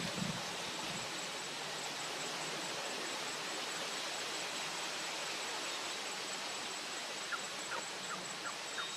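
Steady outdoor hiss of wind and rustling leaves with a thin, steady high tone. From about seven seconds in, a bird starts a run of short, falling chirps, a few per second.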